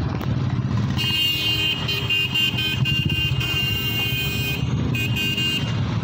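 Several motorcycle engines idling together with a low, steady pulse. From about a second in, a high beeping tone sounds over them in short on-and-off runs, breaking off near the end and returning briefly.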